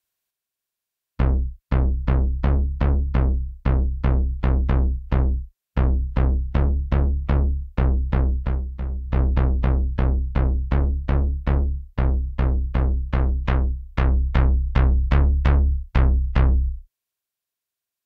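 u-he Zebra 2 software synthesizer playing its 'HS June 6th Bass' preset, starting about a second in. It plays a repeating line of short, plucky bass notes, about three a second in two-second phrases. Each note is bright at the attack and quickly turns dull.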